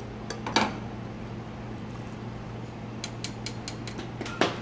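A metal spoon clinks once against a small stainless-steel saucepan about half a second in, over a steady low hum. A few light taps follow near the end as the pan is set down on a steel counter.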